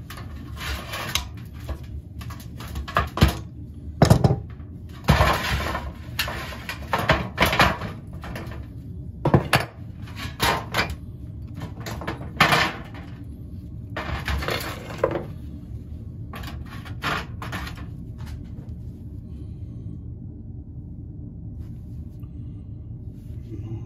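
Metal clanks and knocks of clamps and ingot molds on a steel baking tray as the molds are unclamped and the freshly cast copper bars are knocked out. The knocks come thick for the first fifteen seconds or so, then thin out to a few.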